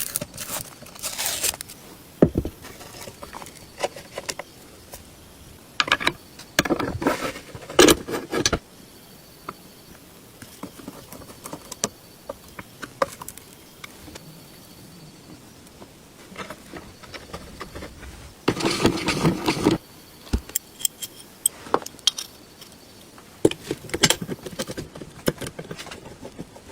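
Small metal parts clinking, rattling and scraping as they are handled, with longer bouts of scraping or rubbing about six to eight seconds in and again near twenty seconds.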